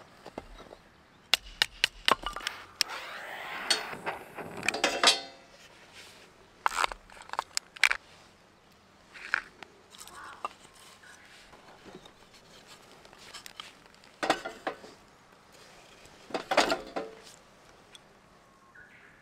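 Camp cookware and utensils being handled, clinking and knocking in short irregular clusters. There is a busier stretch of clattering in the first few seconds.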